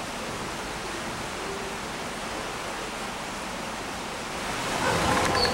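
Steady, even rushing hiss with no distinct events; a louder, fuller sound swells in near the end.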